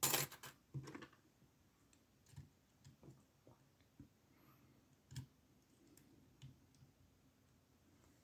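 Small metal clicks and ticks of a pick and tensioner working in the keyway of a 20 mm Amtech padlock. A quick cluster of louder clicks comes in the first second, then single faint clicks every second or so.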